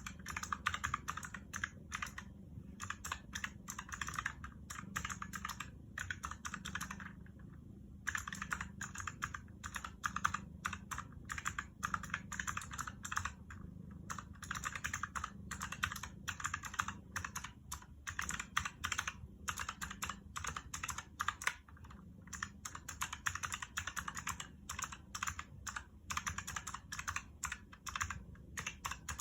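Typing on a Razer mechanical keyboard with clicky Razer Purple switches: fast runs of sharp keystroke clicks, broken by brief pauses every few seconds.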